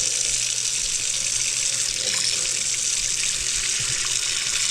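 Kitchen faucet running steadily into the sink, filling it to test a freshly unjammed garbage disposal.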